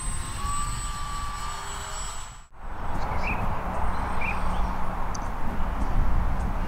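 The 50 mm electric ducted fan of a 3D-printed Avro Vulcan model jet in flight. At first it gives a thin whine, rising slightly in pitch. After a sudden break about two and a half seconds in, it gives a steady rushing fan noise.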